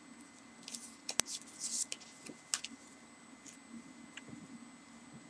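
Light handling sounds of an inked foam stamp block being turned over and pressed face down onto paper on a tabletop: a few soft taps and rustles, with one sharp click about a second in. A faint steady hum runs underneath.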